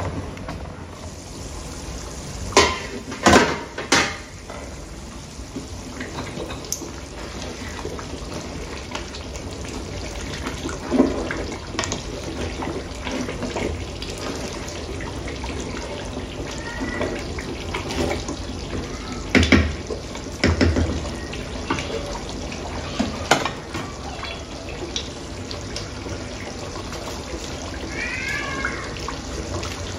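Stew simmering and bubbling in a large aluminium stockpot on a burner: a steady watery hiss. There are a few sharp clanks of the metal lid and a wooden spoon against the pot, several about three seconds in and more around twenty seconds in.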